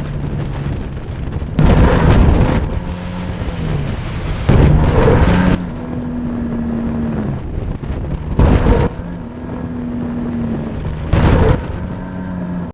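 Yamaha TMAX530 DX scooter's parallel-twin engine and belt drive running on the move, its pitch shifting, with four loud rushing surges a few seconds apart. It is the drivetrain noise under throttle at speed that the owner traces to the V-belt.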